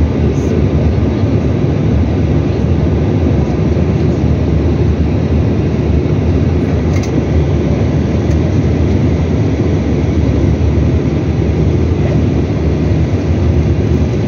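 Steady cabin noise inside a Bombardier CRJ900 regional jet descending to land: an even, loud rumble from airflow and the General Electric CF34 turbofans, heaviest at the low end.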